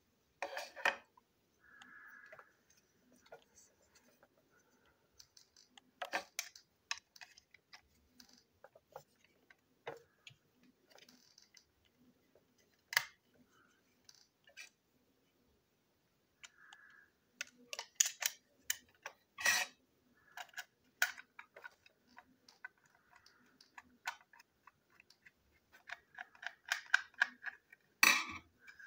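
Hard plastic toy train tender parts, the body and chassis, clicking and tapping against each other as they are handled and pressed together. The clicks are irregular and come thicker in the second half, with the loudest just before the end.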